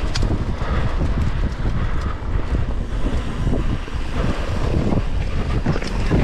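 Wind buffeting the microphone during a mountain-bike ride, a steady low rumble with a few short knocks and rattles.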